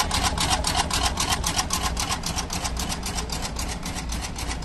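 A 60-station axial component insertion machine running, its insertion head clattering in a rapid, even rhythm over a low steady hum.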